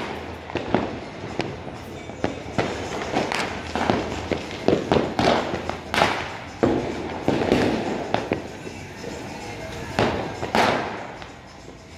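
Firecrackers and fireworks going off around the town: a string of irregular bangs and cracks, often overlapping, each trailing off in an echo.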